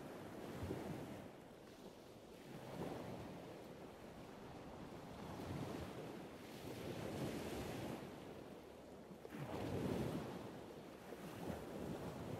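Ocean surf washing over rocks below a cliff: a low rush that swells and fades every few seconds, with wind on the microphone.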